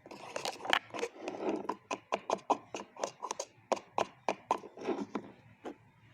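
Clear slime being worked by hand: a rapid, irregular series of sticky clicks and squelches, about three or four a second, that die away near the end.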